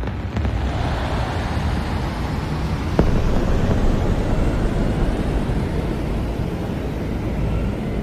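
Designed rocket-launch sound effect: layered synthesizer and percussion textures processed with the Valhalla Supermassive reverb, making a dense, steady rocket-like rumble with most weight in the low end. A sharp crack cuts through about three seconds in, and the rumble eases slightly near the end.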